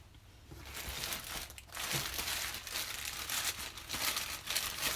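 Packaging crinkling and rustling as it is handled, an irregular crackle that starts about half a second in, with a short lull near two seconds.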